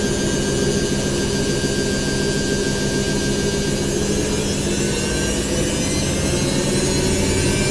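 Washing machine on its spin cycle: a steady motor hum and drum rumble with whining tones, some creeping slightly up in pitch.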